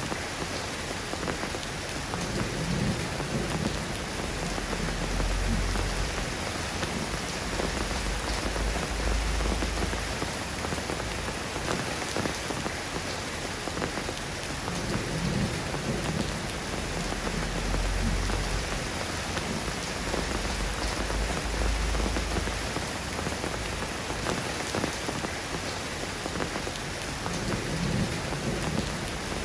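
Steady rain falling on a surface, an even hiss of many drops, with low rumbles swelling and fading every few seconds underneath.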